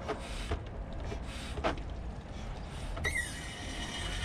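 Vacuum oil extractor drawing the last engine oil out through the dipstick tube of a Yamaha TR-1 engine: a run of short hissing strokes, then about three seconds in a steady high whistle sets in.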